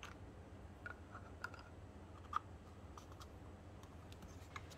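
Faint clicks and taps of hard plastic parts being handled as the nozzle is fitted onto the outlet of an RC boat water jet thruster, about seven in all, the sharpest about two and a half seconds in, over a low steady hum.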